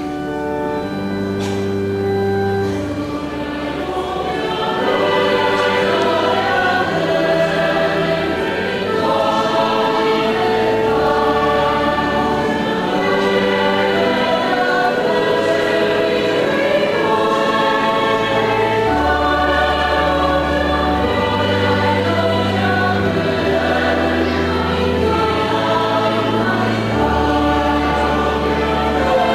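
Church choir singing liturgical music, with steady held bass notes underneath. It grows louder over the first few seconds and then carries on evenly.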